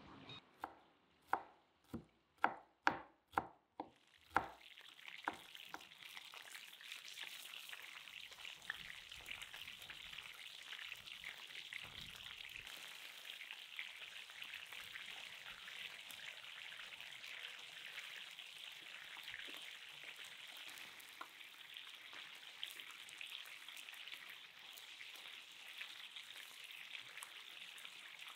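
A knife chopping garlic on a wooden cutting board, about eight quick strokes in the first four seconds. Then chicken pieces sizzling steadily in hot oil in a frying pan.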